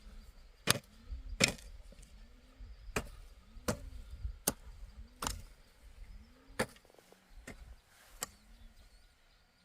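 Repeated chopping strikes, about a dozen sharp hits at an uneven pace, roughly one every half second to a second, like a blade coming down on wood.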